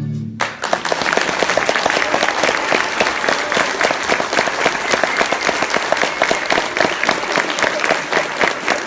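The last chord of the music cuts off just at the start, then the audience applauds, many hands clapping steadily.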